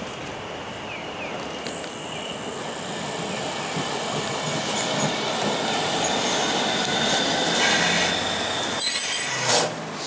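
Kumamoto City Tram car 9204 rolling into a stop, its running noise on the rails growing louder as it approaches, with a faint high wheel squeal. A short cluster of loud, sharp sounds comes about nine seconds in as it draws alongside.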